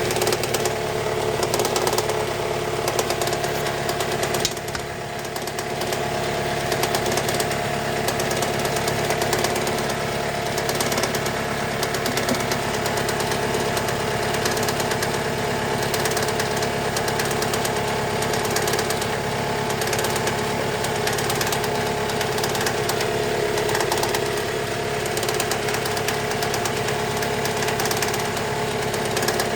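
Toyota 3S-FE inline-four engine idling with a steady, rapid knock, which the owner suspects comes from a timing-belt pulley. The sound dips briefly about five seconds in.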